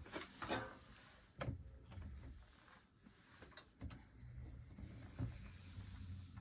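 Fleischmann model-railway turntable driven by a Faulhaber motor: a few light clicks and knocks, then a low, steady hum that starts about four seconds in as the drive runs quietly.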